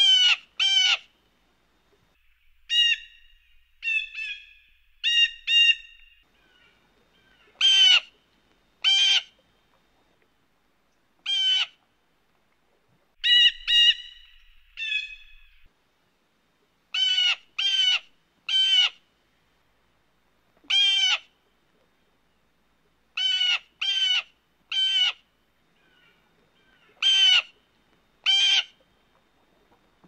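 Blue jay calling: a string of short calls, often in twos and threes with pauses of a second or more between groups, and a few calls of a different pattern mixed in.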